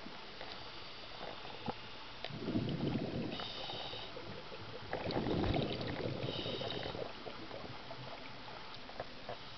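Scuba regulator breathing underwater: two bursts of exhaled bubbles, each followed closely by a short hiss of inhalation through the regulator, with faint scattered clicks throughout.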